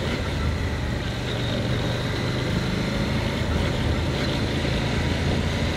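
2024 CFMOTO 800MT Explore's KTM-derived 799 cc parallel-twin engine running steadily on the move, heard from onboard with a steady hiss of road and wind noise.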